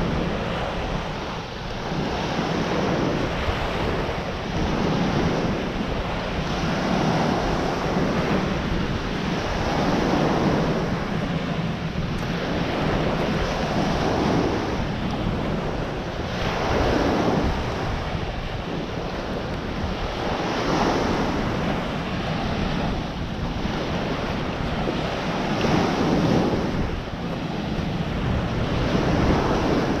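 Small ocean waves breaking and washing up on a sandy beach, the surf noise swelling and fading every few seconds, with wind rumbling on the microphone.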